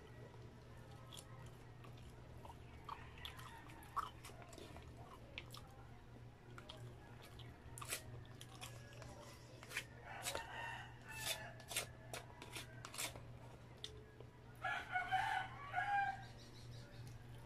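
Close-up mukbang eating sounds: sharp clicks of a plastic spoon against paper takeout boxes, and chewing. A rooster crows loudly in the background about fifteen seconds in, with a fainter call a few seconds earlier.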